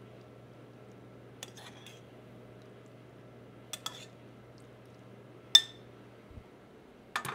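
Spoon clinking against a small pan while stock with peas and fava beans is spooned onto a plate: a handful of scattered clinks, the loudest about five and a half seconds in, ringing briefly. Under it runs a steady low hum.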